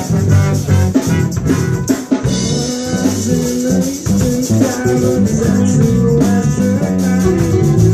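Live band playing an instrumental break in a song, guitar leading over drums.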